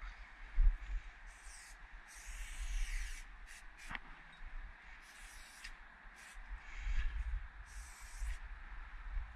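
Aerosol spray-paint can hissing in short bursts, about six of them, each under a second, as thin lines are sprayed onto a brick wall. A sharp click sounds about four seconds in, over a low rumble of wind and handling on the microphone.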